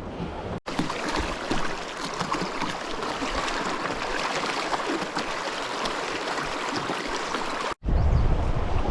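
Rushing river current, a steady even hiss of moving water. Near the end it cuts off abruptly and gives way to wind buffeting the microphone.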